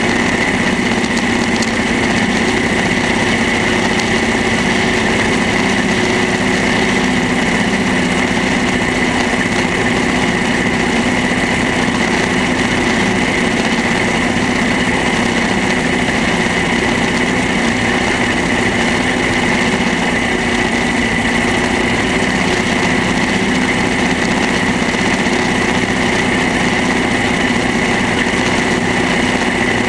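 Vintage tractor engine running steadily while towing a loader wagon through grass, with a steady high whine over the engine note.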